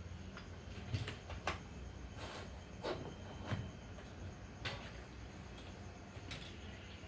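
Computer keyboard keys pressed one at a time: about six separate clicks at uneven spacing as colour letters are typed in.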